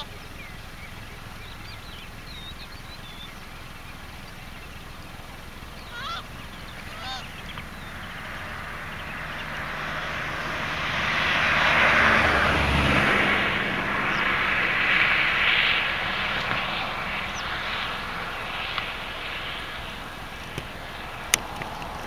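A fixed-wing aircraft passing over, its engine noise swelling from about a third of the way in, peaking near the middle and fading slowly. A few short bird calls come near the start and again about six and seven seconds in.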